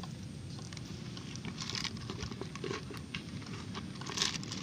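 Faint handling sounds from a bucket of live eels: a few scattered soft taps and crinkles against a low, steady background noise.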